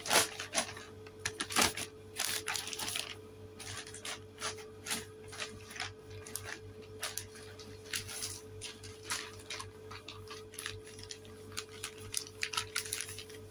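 Thin plastic shopping bag rustling and crinkling as it is handled and folded, a run of quick, irregular crackles.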